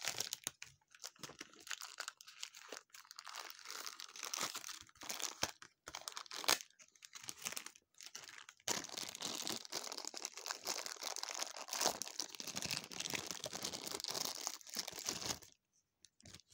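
Clear plastic bag crinkling and rustling as a small figure is unwrapped by hand, with a couple of sharp snaps along the way. It stops briefly near the end.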